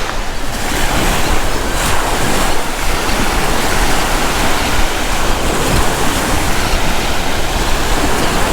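Waves washing onto a sand beach, with strong wind buffeting the microphone in a steady low rumble.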